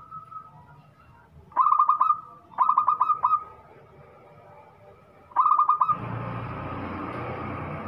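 Zebra dove (perkutut) cooing: three short bursts of quick staccato coo notes, about a second apart and then again near the end. A steady rushing noise takes over about six seconds in.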